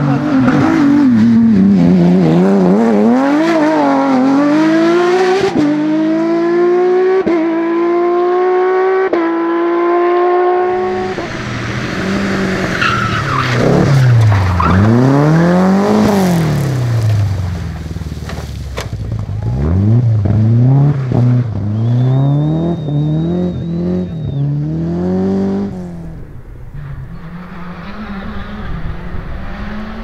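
Rally cars at full speed on a stage. First a Porsche 911 GT3's flat-six accelerates hard, its pitch climbing through several quick upshifts. After a cut, a second rally car's engine revs up and down sharply as it slides through a muddy corner, and near the end a quieter car approaches.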